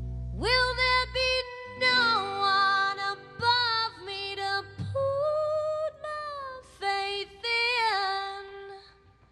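Female voice singing long, held, gliding notes in phrases, the low accompaniment beneath dropping out about a second and a half in, so the voice carries on almost alone. The singing fades away near the end.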